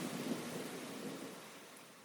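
Steady rain with a low rumble of thunder, fading out over the last second.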